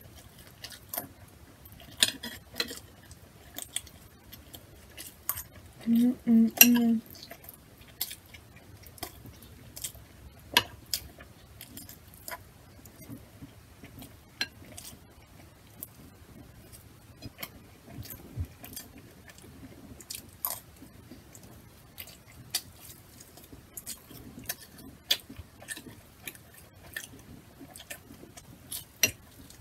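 Close-miked eating: chewing and mouth clicks, with scattered clinks of a metal spoon against glass dishes. A brief vocal hum about six seconds in.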